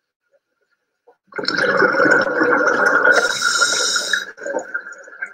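Scuba diver's regulator exhaust, a rush of bubbles gurgling underwater that starts about a second in, lasts about three seconds and fades away.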